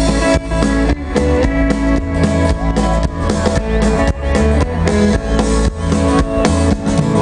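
Live country band playing loud amplified music: strummed acoustic guitars, electric guitar, bass and a drum kit keeping a steady beat.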